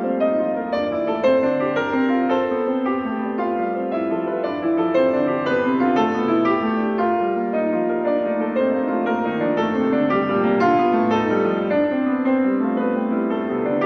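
Solo piano music played on a Bösendorfer grand piano: a steady, dense flow of notes, with many struck notes overlapping and ringing on into one another.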